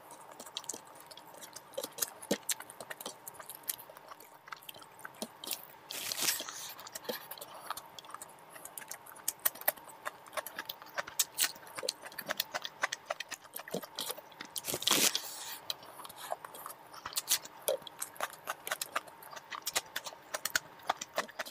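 Close-miked eating by hand: rice and curry chewed with wet mouth clicks and smacks, in many short sharp sounds with a few louder ones. Near the end, a raw cucumber slice is bitten with a crunch.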